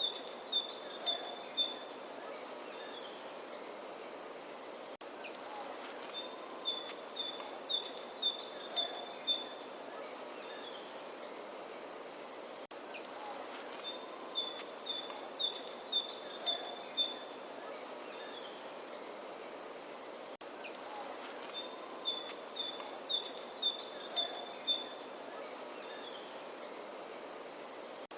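Songbird singing the same phrase over and over, about every eight seconds: a quick high falling run, then a string of rapid notes alternating between two pitches, over a steady outdoor hiss.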